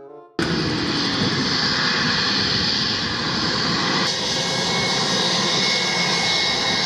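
Airplane engine sound effect: a loud, steady rushing noise with a faint high whine. It starts abruptly about half a second in and cuts off suddenly at the end.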